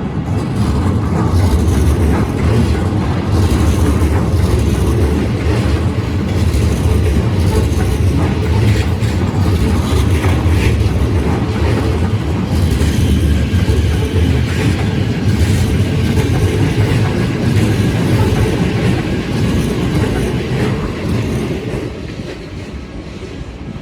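Keikyu Line electric train passing over a level crossing, its wheels rumbling and clattering on the rails, dying down somewhat near the end.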